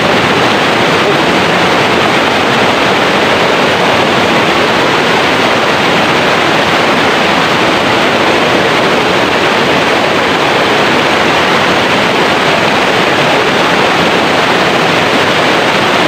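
River rapids rushing over boulders: a loud, steady whitewater noise.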